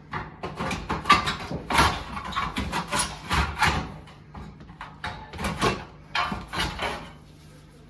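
Irregular knocks, bangs and scrapes from hand work on wooden wall framing, about two a second, over a faint steady low hum.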